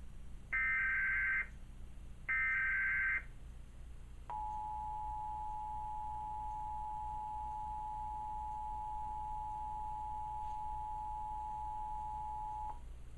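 Emergency Alert System test signal: two roughly one-second bursts of warbling SAME header data tones, then the steady two-tone EAS attention signal (about 853 and 960 Hz together) sounding for about eight seconds before it cuts off near the end.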